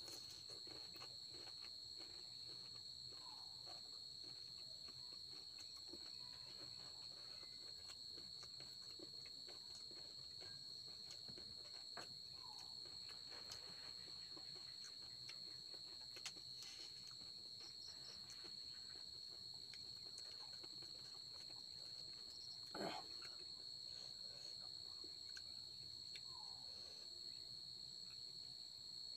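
Faint, steady high-pitched chirring of crickets running throughout. Over it, a few soft eating sounds: small clicks and crunches as panipuri shells are eaten, the most noticeable about three-quarters of the way through.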